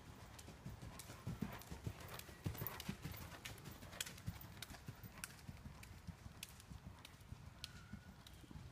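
A horse cantering on soft sand arena footing, its hoofbeats a run of dull thuds. They are loudest as it passes close, about one to three seconds in, and grow fainter as it moves away.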